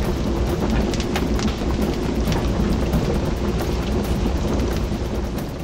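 Roaring fire with a steady deep rumble and scattered sharp crackles, as of a blazing furnace.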